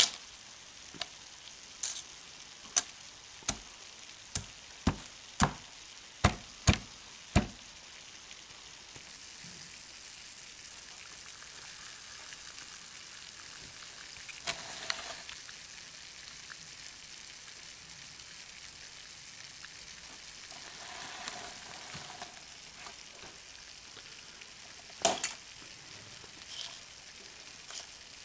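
A flash-frozen flower being struck again and again on a metal tabletop, shattering with a series of sharp cracks about every 0.7 seconds for the first seven seconds. After that comes a steady fizzing hiss of dry ice bubbling in ethanol, with a few more clicks near the end.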